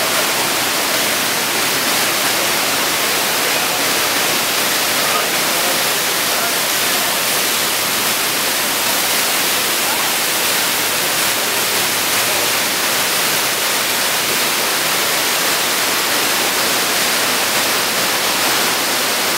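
Water pouring down an artificial rock waterfall into a swimming pool, a steady loud rushing.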